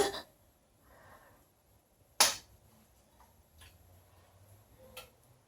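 One short, sharp click or smack about two seconds in, and a fainter click near the end, as the broth is tasted again from a spoon.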